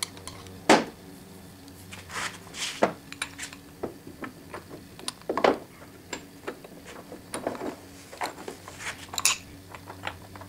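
Irregular metal clicks and clunks of a cast-iron tailstock being set onto and slid along the oiled bed ways of a South Bend 9-inch lathe, with clicks from a brass pump oil can at the start. The loudest knock comes within the first second.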